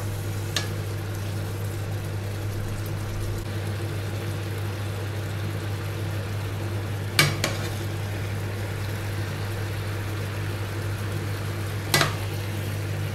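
A pot of chicken, peppers and tomato sauce sizzling and simmering on an induction hob over a steady low hum, with a spoon stirring. Sharp clinks against the pot, about a second in, twice about seven seconds in and once near the end; the ones at seven seconds and near the end are the loudest.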